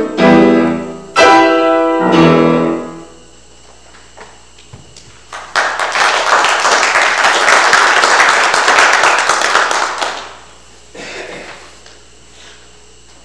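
A piano piece closes with its last sustained chords, dying away about three seconds in. After a short hush comes a loud stretch of dense, crackly noise lasting about four seconds.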